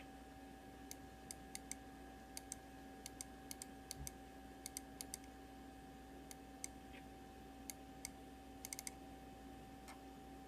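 Faint, irregular clicking of a computer being operated, a couple of clicks a second with a quick cluster near the end, over a steady electrical hum.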